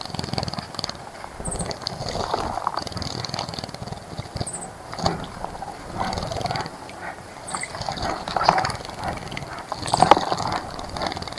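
Wild birds calling: a short, very high chirp repeated about every three seconds, with other thin calls between.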